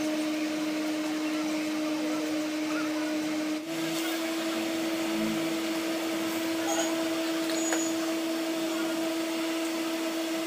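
Steady electric motor or fan hum with a constant low whine over a hiss, stepping slightly higher in pitch about four seconds in. There are a few faint clicks of metal engine parts being handled.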